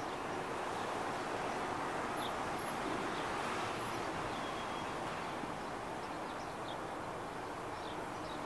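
Steady outdoor background noise, with a few faint, short high chirps scattered through it.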